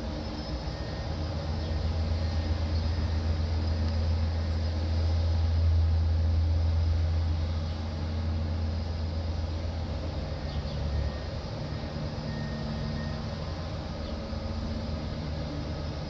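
Diesel engine of heavy construction machinery running with a steady low hum, swelling louder for several seconds and easing back about eight seconds in.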